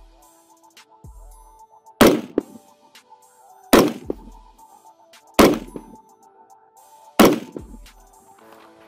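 Four shots from a Daniel Defense DDM4 V7 Pro AR-15 rifle in 5.56 mm, fitted with a muzzle brake, fired in slow, evenly spaced aimed fire about 1.7 seconds apart. Each is a sharp crack with a short ringing tail and a fainter second crack just after it.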